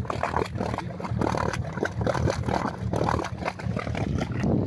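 Jeep Grand Cherokee engine running under load while the vehicle is stuck in a muddy ditch, with irregular wet churning and splattering of mud throughout.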